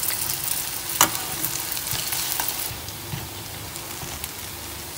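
Turon (banana spring rolls) sizzling and crackling in hot oil and melting brown sugar in a frying pan as they are turned with metal tongs, with a sharp click of the tongs against the pan about a second in. The sizzle softens a little after about halfway.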